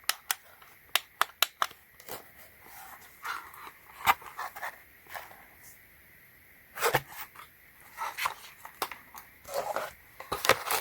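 Small plastic parts and packaging being handled: scattered sharp clicks and light rustling, with a quiet stretch in the middle.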